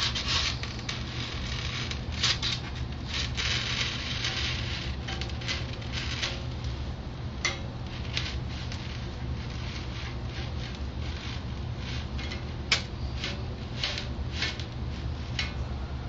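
Foam block rubbing and scraping as it is turned against the taut wire of a hot-wire foam cutter, with scattered small clicks and snaps as the wire works through the glued seams, over a steady low hum.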